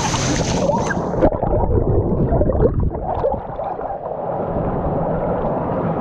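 Rushing water of a river waterfall pool. About a second in, the hiss cuts off and the water turns muffled and gurgling, and stays that way.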